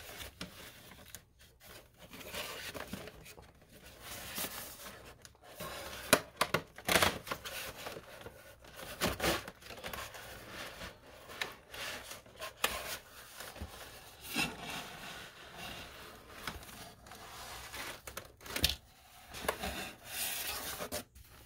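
Cardboard of a Pokémon TCG premium collection box being handled and opened: irregular rubbing, scraping and rustling as the printed sleeve slides and is pulled off, with a few sharp taps and knocks of the box.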